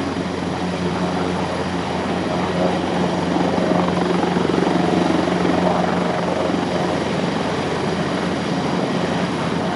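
Airbus EC225 Super Puma twin-turbine helicopter running steadily on the ground, turbines whining and rotor turning with a constant low hum, shortly before takeoff.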